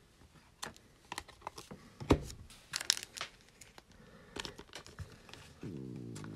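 Plastic wrapper of a trading-card cello pack crinkling and tearing as it is opened by hand, in scattered soft crackles. Near the end comes a low pitched stomach growl, about a second and a half long.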